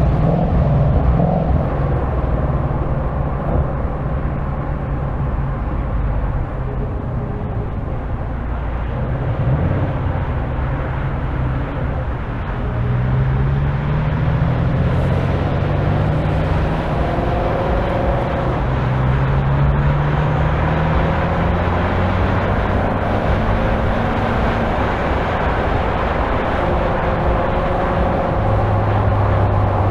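Ford Mustang GT's 5.0-litre V8 running while driving, with road and wind noise. From about twelve seconds in, the engine note rises in pitch three times, each rise followed by a drop, as the automatic shifts up through its gears under acceleration.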